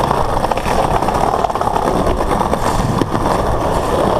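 Skateboard wheels rolling over brick paving: a steady, rough rumble.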